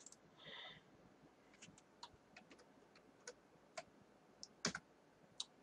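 Faint, irregular clicks of a computer mouse and keyboard, about a dozen spread over a few seconds, the loudest near the end, over near silence.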